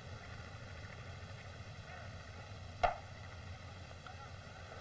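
Steady hiss and hum of an old film soundtrack, with one sharp thump a little past the middle.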